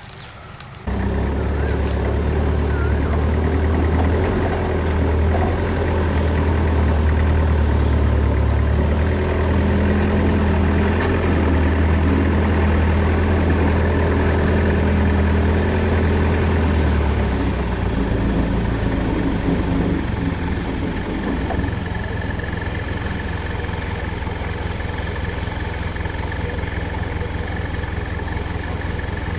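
A 4x4 pickup's engine running at low revs as it creeps along a dirt trail, heard from inside the cab as a steady low drone. The drone drops a little in level about two-thirds of the way through.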